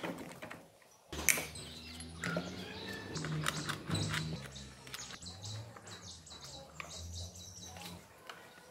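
Clicks and light rattles of small metal parts, a bolt and cables being handled on a scooter engine, with birds chirping in the background and a low hum.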